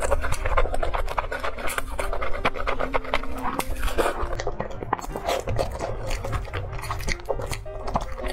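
Close-miked eating: wet chewing, lip smacking and slurping of food and noodles, heard as a dense run of quick clicks and squelches.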